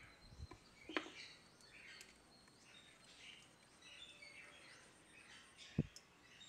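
Faint chirping of birds, with a light click about a second in and one sharp knock near the end from handling the plastic pan-tilt servo bracket.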